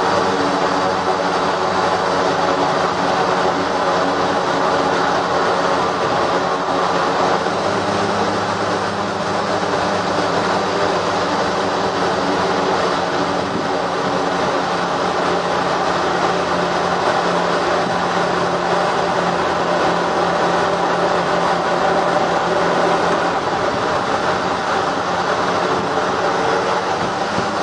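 Twin Garrett TPE331 turboprop engines of a CalFire S-2T Tracker air tanker running steadily while taxiing, heard inside the cockpit as a loud, even drone made of many tones. A low hum comes up stronger for a stretch in the middle.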